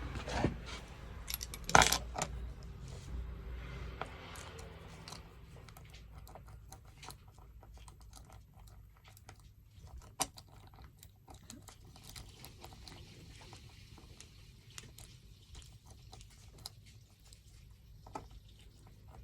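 Small metal clicks and clinks from a cam lock being stripped down by hand: the brass plug, held by a key blank, is worked out of its cylinder. The loudest is a sharp metallic click about two seconds in, followed by scattered faint clicks and taps.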